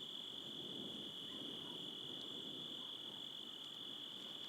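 Crickets trilling in a steady, faint, high-pitched chorus, with a couple of faint clicks.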